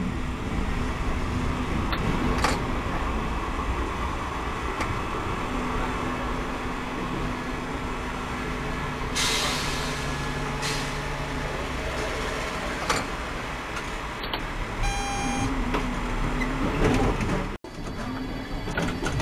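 Tram running along street track, heard from the driver's cab: a steady rumble with a low motor hum, a burst of hiss about nine seconds in, and a brief tone about fifteen seconds in.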